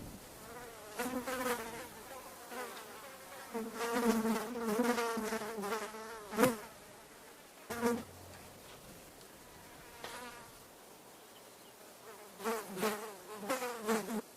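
Flies buzzing in flight, in passes that come and go, the pitch wavering up and down as they fly near and away. The longest pass runs about three seconds, with quieter gaps between the passes.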